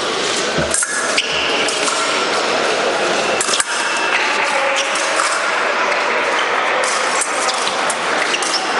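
Steady din of a large fencing hall with bouts going on, broken by a few short sharp clicks and clinks.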